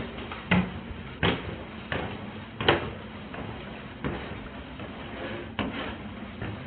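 Footsteps thudding up carpeted stairs as heard from a body-worn camera, an irregular series of thumps with the loudest about two and a half seconds in.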